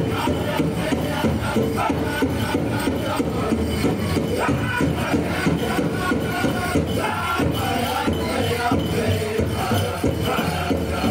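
A powwow drum group playing a prairie chicken dance song: a big drum struck in a steady beat by several drummers, with the singers' voices carrying over it.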